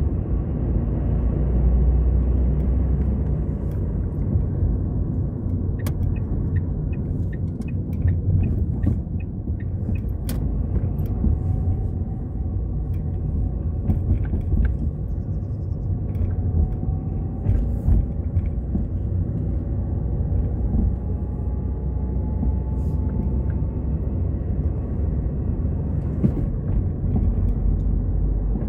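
Car interior noise while driving: a steady low engine and road rumble, with scattered small clicks and knocks.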